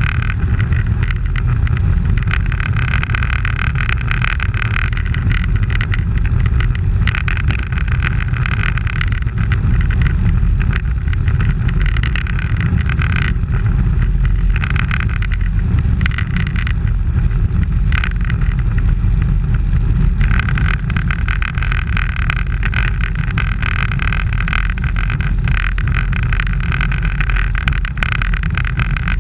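Wind rushing over a bicycle-mounted camera's microphone as it rides in a pack of road bikes, a steady loud rumble with tyre and road noise. A higher whirring sound comes and goes every few seconds.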